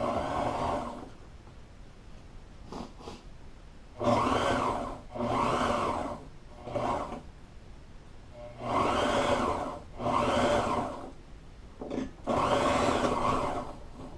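Sewing machine stitching upholstery in short stop-start runs: about seven bursts of motor and needle noise, each about a second long, with short pauses between.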